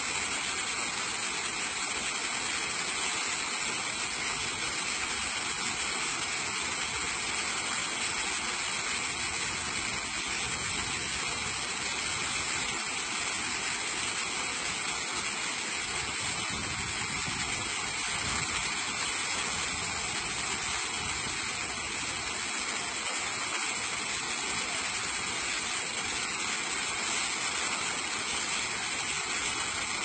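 Waterfall pouring into a plunge pool: a steady, unbroken rush of falling water.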